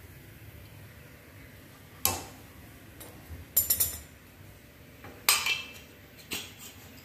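Aluminium murukku presses clanking as they are handled: a sharp metal knock about two seconds in, a quick rattle of clinks a little later, then two more knocks near the end, the last one lighter.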